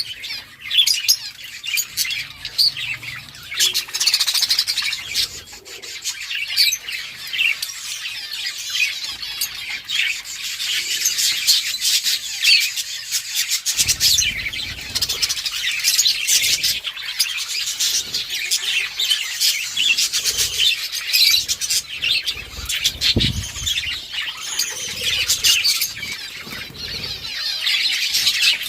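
A flock of budgerigars chirping and chattering continuously, many birds calling over one another, with a few soft low thuds now and then.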